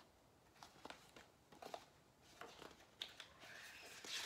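Near silence with a few faint rustles and soft taps of a picture book's paper pages being handled and turned.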